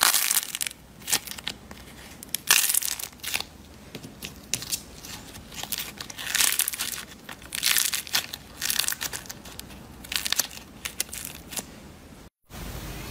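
Dry crunching and crackling in bursts about a second apart as fingers squeeze and crush a slime figure with a hardened outer crust, the crust cracking with each squeeze.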